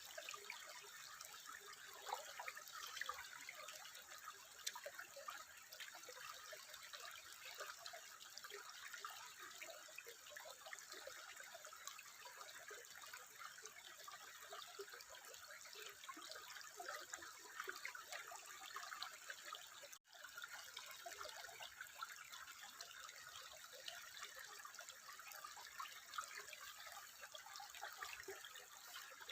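Water trickling steadily and faintly, dense with small drips and splashes. The sound cuts out for an instant about twenty seconds in.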